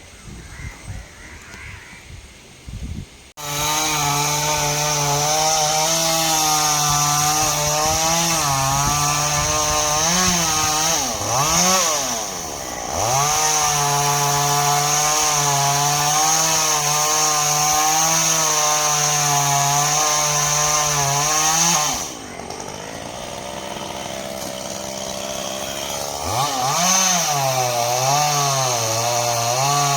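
Chainsaw cutting into a coconut palm trunk. It comes in suddenly at full throttle a few seconds in, and its revs sag and recover twice near the middle as the chain bites. About three-quarters through it drops to a lower, quieter running, then is revved up again near the end.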